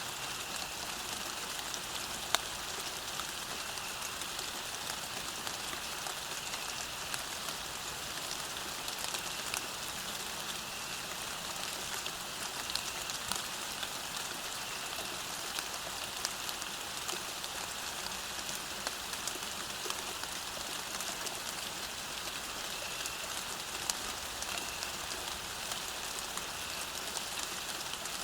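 Steady rain falling on a road, an even hiss with scattered sharp drop ticks.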